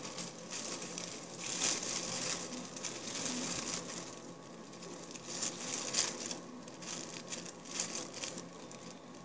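Clear plastic bag crinkling and rustling in irregular bursts as it is handled.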